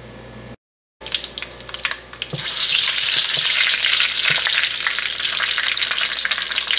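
Cumin seeds frying in hot oil in a wok, stirred with a wooden spatula: scattered crackles start about a second in, then a loud, steady sizzle from about two and a half seconds on.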